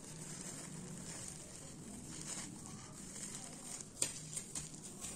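Thin plastic crinkling and rustling as disposable plastic gloves handle small plastic bags of metal jump rings. A few light taps about four seconds in as the bags are set down on the table.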